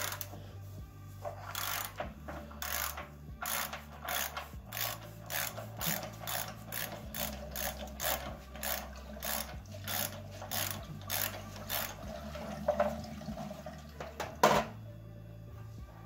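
Ratchet socket wrench with a 1-1/16 inch socket clicking as it is worked back and forth, about two strokes a second, unscrewing a water heater's anode rod. The ratcheting stops about twelve seconds in, and a couple of sharper knocks follow near the end.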